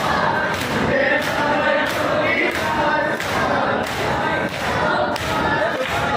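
A crowd of men chanting a Shia noha (matam) in unison, led by a reciter, while beating their chests in time. The hand strikes make a steady beat of about two thuds a second under the voices.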